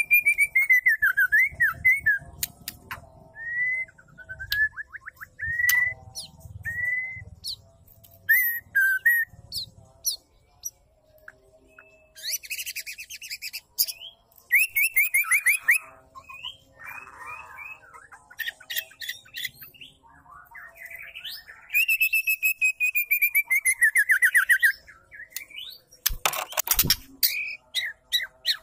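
Female white-rumped shama (murai batu) calling. Rapid trills slide down in pitch at the start and again after the middle, with short upswept chirps between them, and a loud harsh rasp comes near the end.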